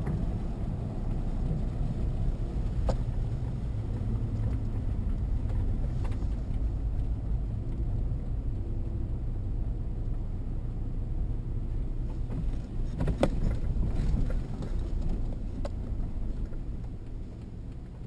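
Car driving slowly up a mountain road, heard from inside the cabin: a steady low engine and tyre rumble with a few light knocks. The rumble dies down near the end as the car comes to a stop.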